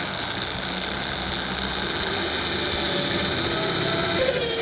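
Corded electric drill running steadily as its twist bit bores into a wooden board, with a steady high whine; a lower tone comes in near the end as the bit goes deeper.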